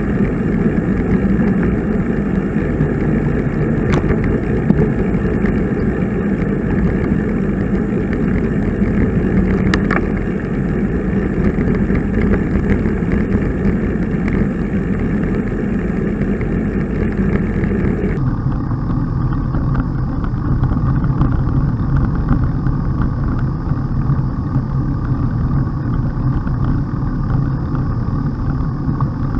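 Steady rushing wind and road noise while riding a road bicycle. The character of the noise changes abruptly about two-thirds of the way through.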